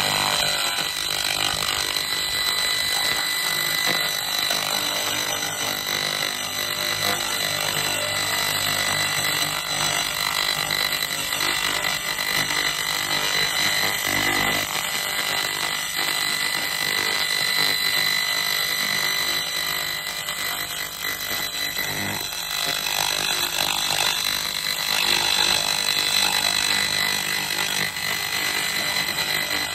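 Handheld continuous-wave laser cleaner (2000 W) stripping paint and rust from a steel rudder: a steady high-pitched whine over a constant hiss and fine crackle as the beam burns off the coating.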